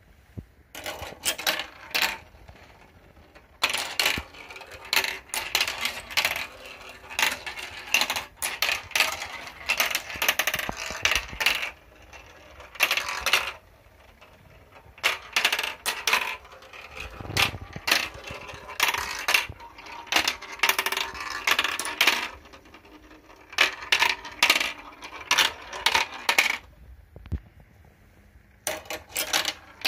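Balls rolling and clattering down a plastic marble run toy: rattling runs through the tubes, trays and tracks with many sharp clicks, coming in stretches with short pauses between.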